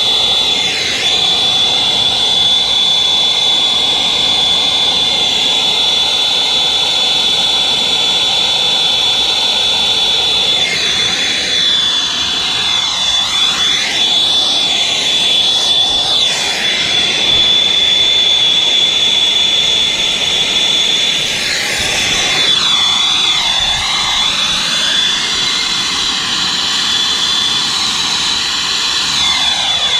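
Brazing torch burning steadily on a refrigerant line-set joint: a constant loud rushing hiss with a steady high whistle, its tone shifting and swirling in the middle and again in the last third.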